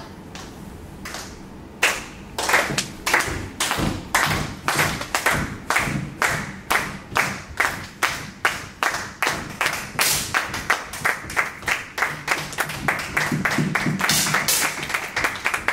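Spectators clapping in a steady rhythm, about three claps a second, starting about two seconds in and merging into a brief burst of applause near the end.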